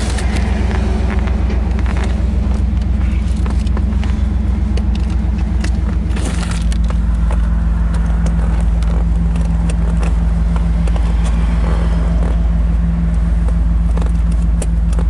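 1991 Chevrolet Camaro Z28's tuned-port-injected V8 idling steadily, its idle settling slightly lower about six seconds in. Scattered clicks and rustles of a seat belt being pulled across and buckled.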